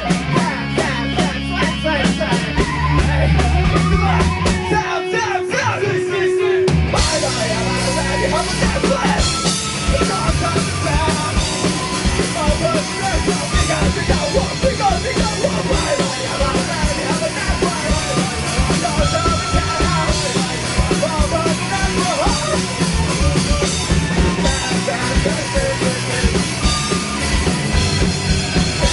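A rock band playing with a drum kit and heavily distorted guitars. About five seconds in, the low end drops out for a couple of seconds, then the full band comes back in.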